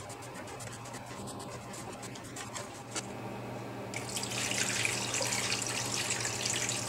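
Water poured from a plastic bucket into a long PVC-pipe anodizing tank, splashing and running steadily from about four seconds in. Before that come a few faint knocks as the aluminium sheet is handled in the pipe.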